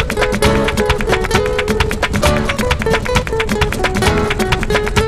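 Flamenco-style acoustic guitar music, with quick plucked and strummed notes over a melody line.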